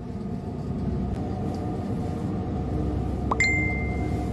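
Steady low hum of the platform supply vessel's engines and machinery, heard inside a cabin. About three seconds in, a short rising tone jumps into a held high beep that lasts under a second.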